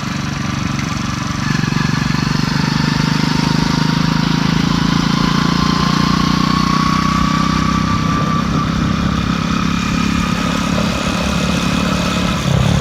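Motorbike engine running steadily, growing louder about a second and a half in and then holding an even note. Its exhaust has been quietened down a little.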